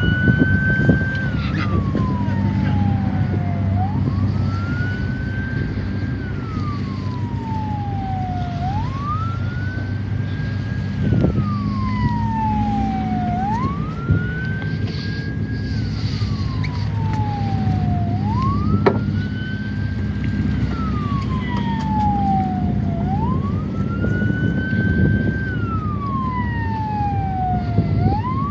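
A coast guard patrol boat's wailing siren, each cycle climbing quickly in pitch, holding briefly, then sliding slowly down, repeating about every five seconds. Under it runs the steady low drone of a boat's engine.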